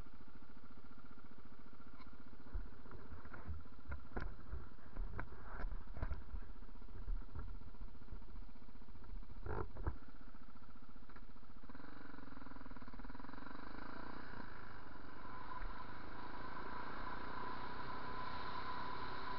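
Yamaha TT600R's single-cylinder four-stroke engine running under way, with several knocks in the first half as the bike crosses bumpy ground. From about twelve seconds the engine note rises and a rushing noise builds as the bike speeds up.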